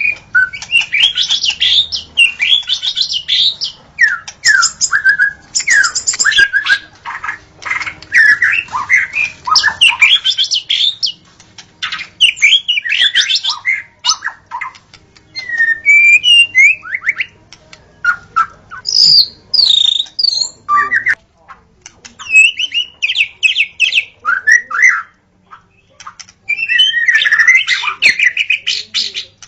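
White-rumped shama singing in full song: long runs of rapid, varied whistled phrases, separated by brief pauses.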